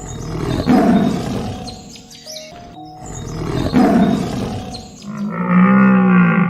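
An animal call played twice, harsh and noisy, each swelling and fading over about two seconds, followed near the end by a longer pitched call that bends up and back down.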